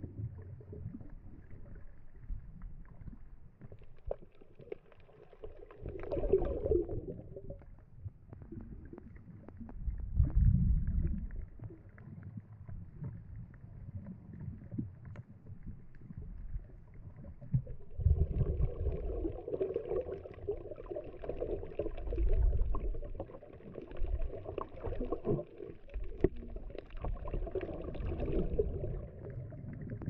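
Muffled underwater sound from a camera held under the sea: water moving and low rumbles. It swells louder about ten seconds in and again for most of the last third.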